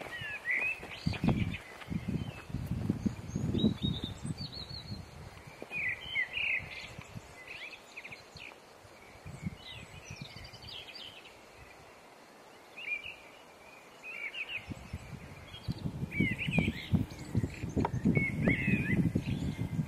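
Small birds chirping repeatedly, with footsteps crunching on a stony trail during the first few seconds. A low, rumbling noise comes in a few seconds before the end.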